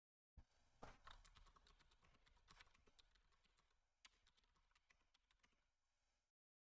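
Faint typing on a computer keyboard: a quick, uneven run of key clicks that cuts off abruptly near the end.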